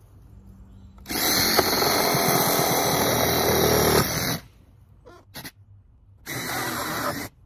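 DeWalt cordless reciprocating saw cutting through the nails that hold a siding board, in two runs: one of about three seconds starting a second in, and a shorter one of about a second near the end.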